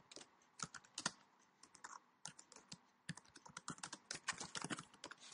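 Faint typing on a computer keyboard: quick, irregular key clicks, thinning out for about a second midway.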